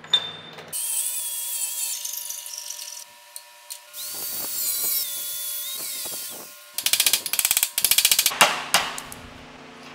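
Handheld angle grinder cutting steel plate, running in several separate spells with a steady whine. Near the end comes a fast, regular pulsing for about a second and a half.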